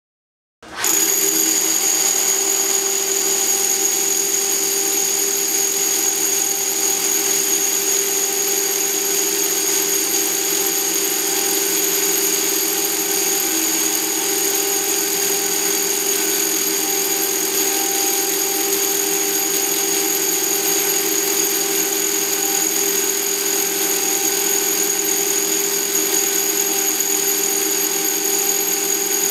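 Three SDS-max rotary hammers (SIMKO, DeWalt D25700 and Bosch GBH 8-45 DV) running together, hammer-drilling into a block of stone. They start sharply about a second in and keep a loud, steady motor whine over the rapid hammering.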